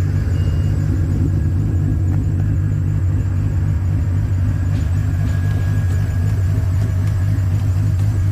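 G-body Oldsmobile Cutlass engine idling steadily with a deep, even hum.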